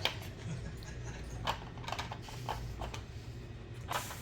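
Scattered light clicks and taps from dogs working at a plastic treat puzzle toy, over a low steady hum.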